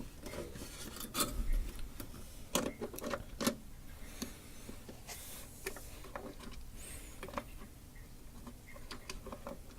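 Irregular light clicks, taps and rubbing as a RAM stick is worked against the clip and slot of a motherboard memory slot, mixed with handling of the camera.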